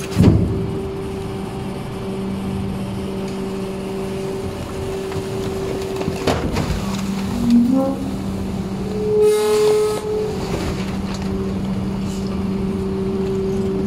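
Rear-loading garbage truck's hydraulic packer running as the blade sweeps down through the hopper: a steady mechanical hum with a couple of knocks. There is a short rising squeal about seven and a half seconds in and a brief held whine around nine to ten seconds in.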